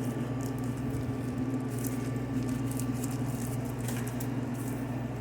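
Soft patting and rustling of hands rolling a sushi roll of rice in a seaweed wrap, with scattered light clicks over a steady low hum.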